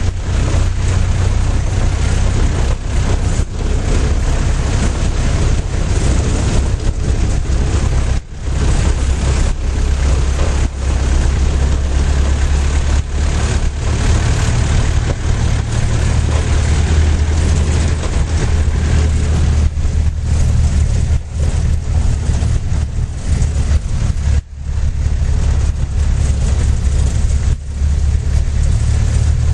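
Vehicle engine running steadily under way on a rough dirt road, heard from inside the cabin, a deep hum with road noise and small knocks from bumps. The sound dips briefly twice, about 8 and 24 seconds in.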